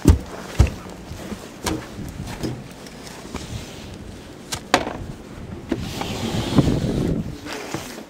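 Wind rumbling on the microphone, with scattered knocks and thumps from the camera being handled while the holder moves through deep snow.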